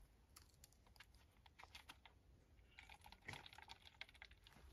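Faint, scattered clicks and crinkles of a soft plastic water pouch being squeezed through a water filter into a plastic bottle, busier in the second half.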